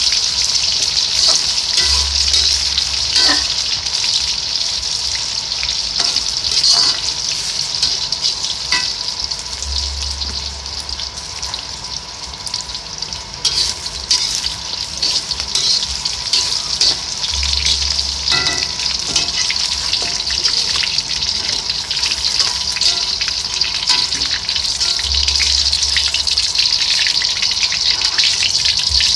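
Food frying in hot oil: a steady, dense sizzle, with a few faint clicks.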